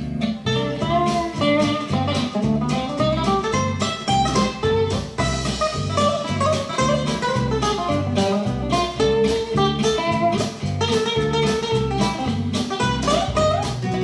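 Guitar-led blues music with a steady beat, played through the JAM Rhythm WiFi home speaker.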